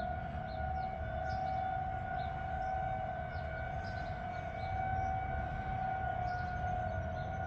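Outdoor tornado warning siren sounding a steady held tone, its loudness swelling and easing gently, a sign that a tornado warning is in effect.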